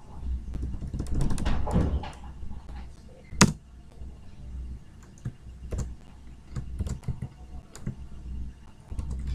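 Computer keyboard typing: a quick run of keystrokes about a second in, one much louder click about three and a half seconds in, then scattered single keystrokes, over a low steady hum.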